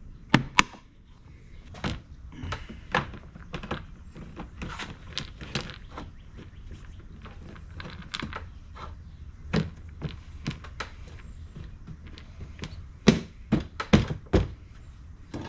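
Scattered clicks, taps and knocks of tools and plastic and metal parts being handled while a generator is reassembled, with a few sharper knocks near the end.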